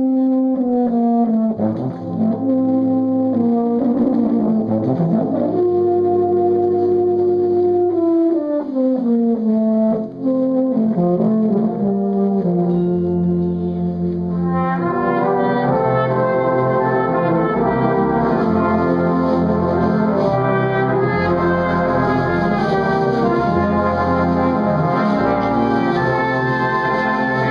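Euphonium playing a melody over brass band accompaniment; about halfway through, the full brass band takes over with a denser, brighter sound.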